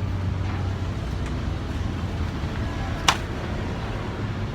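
Steady low rumble of road traffic, with one sharp click about three seconds in.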